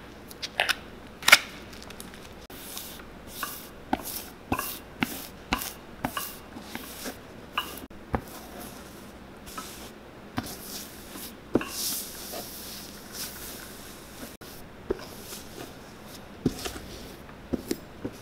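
Granulated hot cork filler being poured from a plastic bag onto a boot's insole and pressed down with a heated metal tool: irregular crisp crunches and crackles, with a few short hissing stretches.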